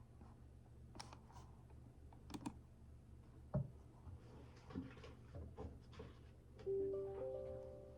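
Computer keyboard typing with scattered key clicks, a single thump about three and a half seconds in, and a short electronic chime of several overlapping notes near the end that fades away.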